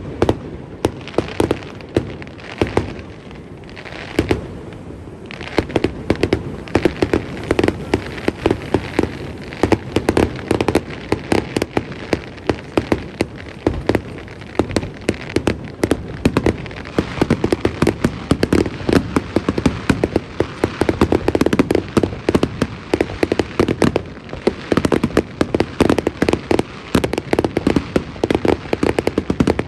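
A fireworks display in a rapid barrage: shells bursting one after another, many loud bangs a second with crackling between them. It starts suddenly and runs a little thinner a few seconds in, then stays dense.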